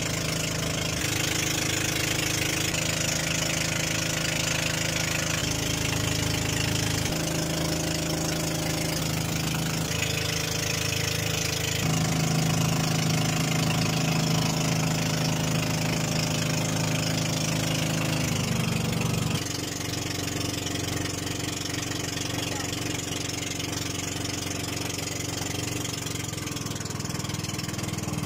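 Outrigger fishing boat's engine running steadily underway, with water rushing along the hull. Its pitch steps several times, and about nineteen seconds in it turns quieter and lower.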